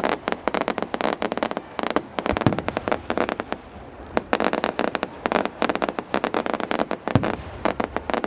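Fireworks crackling: a dense run of rapid sharp pops and cracks that eases briefly in the middle and picks up again, with a couple of deeper bangs mixed in.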